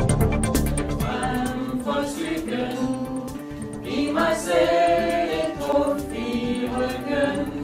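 Music: voices singing long held notes, choir-like, after a beat-driven passage fades out about a second in.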